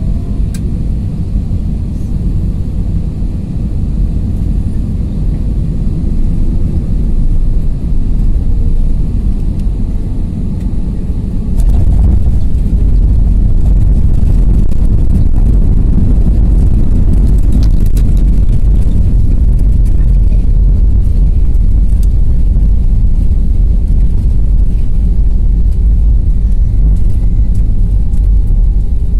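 Cabin noise of an Airbus A320-200 on short final, then touchdown about twelve seconds in: the noise jumps up to a loud, steady low rumble of the landing roll on the runway with the ground spoilers raised, with scattered short rattles for several seconds after.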